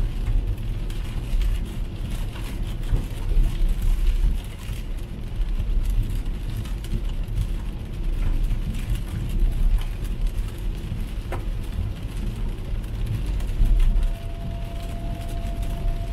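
Steady road rumble and tyre noise of an electric car (MG ZS EV) driving on a rain-soaked road, heard from inside the cabin, with rain on the car and no engine sound. A brief tick comes about eleven seconds in, and a faint steady tone joins near the end.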